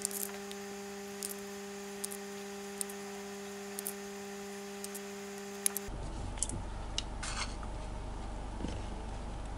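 Light clicks and taps of plastic edible gel-pen tubes and small candies being handled, scattered irregularly, over a steady low hum that stops about six seconds in.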